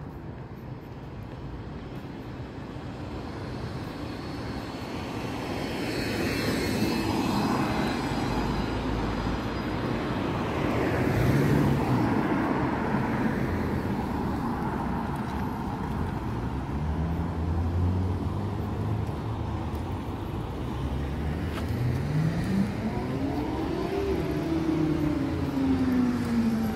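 Road traffic on a city street: passing vehicles swell and fade. In the second half, one vehicle's engine climbs in pitch twice, then slowly falls away near the end.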